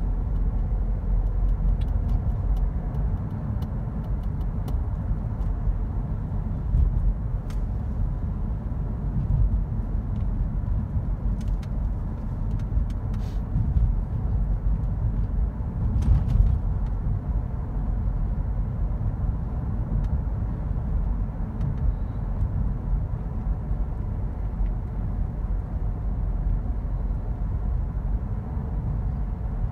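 Steady low rumble of a car driving on town streets, heard from inside the cabin: engine and tyre noise, with a few faint clicks around the middle.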